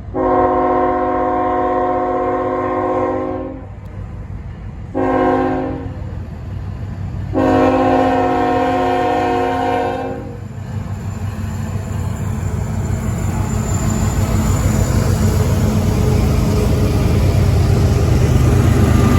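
CSX freight locomotive's multi-note air horn sounding a long blast, a short one, then another long one, followed by the rumble and rail noise of the train growing louder as it approaches.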